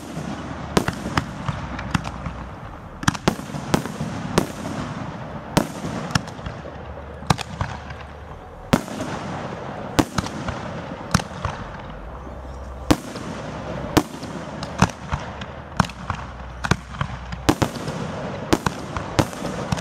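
Aerial firework shells bursting overhead in quick succession: a string of sharp bangs, about one to two a second at irregular spacing, over a continuous background of rumble and noise.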